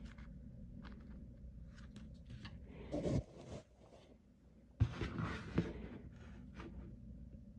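Quiet handling sounds of a metal butter knife scooping nubuck renewal powder from a small metal tin and working it onto a sneaker's nubuck upper. Faint light clicks and scrapes, with two louder scraping bursts about three and five seconds in.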